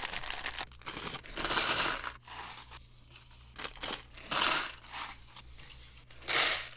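Plastic packaging crinkling and tearing in irregular bursts, as of parts bags being handled and opened.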